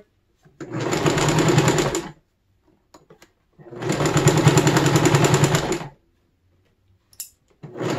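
Electric sewing machine stitching forward along a seam in stop-start runs, its needle chattering fast and evenly. It runs for about a second and a half, pauses, runs again for about two seconds, then starts again near the end.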